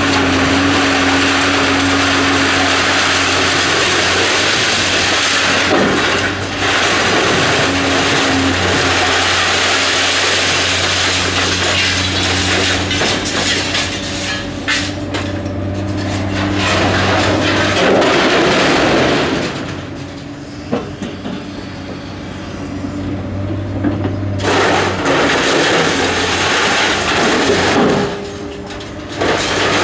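CAT 345C excavator's diesel engine working hard while its demolition sorting grapple digs and drags through concrete rubble and rebar, with scraping and crunching. The noise drops away twice, briefly: about two-thirds through and again near the end, leaving mostly the engine.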